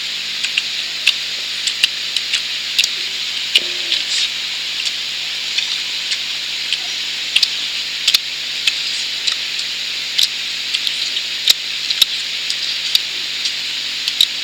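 Steady high hiss of outdoor ambience with frequent sharp clicks and crackles scattered through it.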